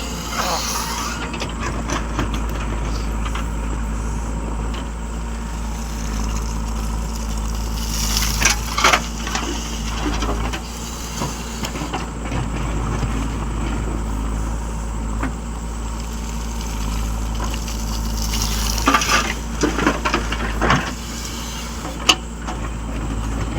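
A heavy vehicle engine running steadily at a constant pace, with a few brief clattering knocks and rattles partway through and a sharp click near the end.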